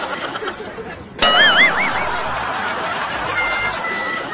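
Crowd murmur, cut about a second in by an added comic sound effect: a sudden high tone that warbles up and down several times for under a second. Near the end, steady high notes of music come in.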